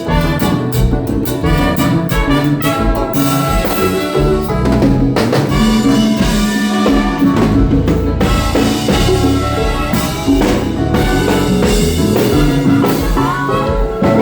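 Live konpa band playing through a sound check: a drum kit keeps a steady beat under bass and held horn lines.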